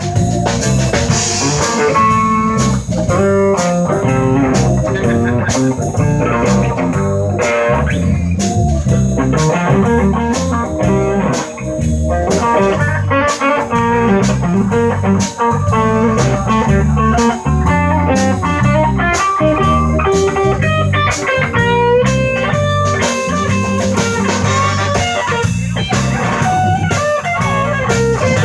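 Live blues band playing an instrumental break with no vocals: an electric guitar takes the lead melody over bass guitar and a steady drum kit beat.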